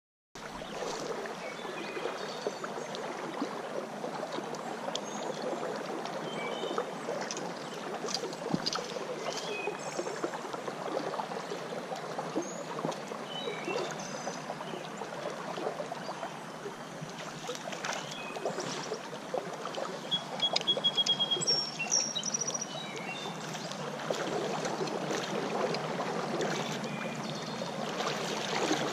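Shallow creek water running and rippling steadily, with a few short high chirps over it. The water grows louder near the end.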